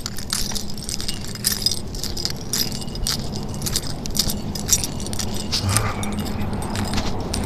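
Small metal items jingling in quick, irregular clinks throughout, over a faint steady hum.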